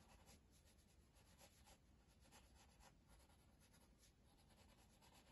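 Pencil lead scratching on paper in short, uneven strokes as a small shape is drawn, very faint.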